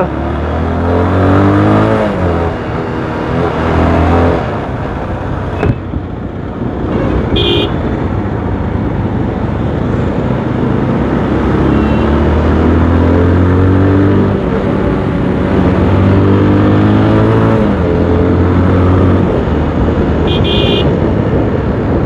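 Motorcycle engine accelerating through the gears, its pitch rising and dropping back at each shift. A vehicle horn toots briefly twice, about 7 seconds in and near the end.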